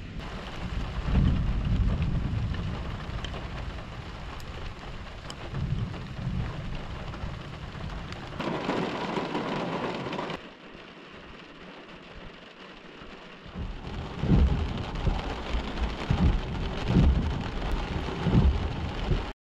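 Thunderstorm: steady heavy rain with rolling thunder, a loud low rumble of thunder about a second in. From about two-thirds of the way through, a run of loud low rumbles and thuds sits over the rain.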